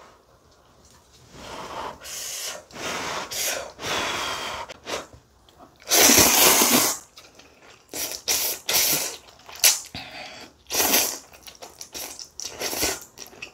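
Close-miked slurping of instant ramen noodles: a run of noisy slurps with pauses between, the longest and loudest about six seconds in.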